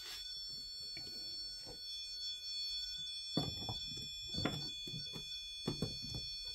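Faint steady high-pitched electronic whine of several tones, with a few soft knocks and rustles of handling in the second half.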